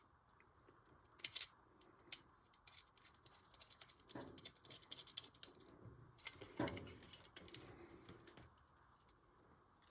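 Faint, scattered metal clicks and light rattling as a locknut is threaded by hand onto a 90-degree BX cable connector through a fixture's metal plate.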